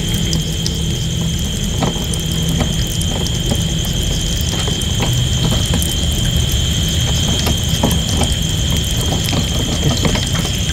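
Motorcycle engine idling with a steady low hum, over a continuous high-pitched whine from night insects.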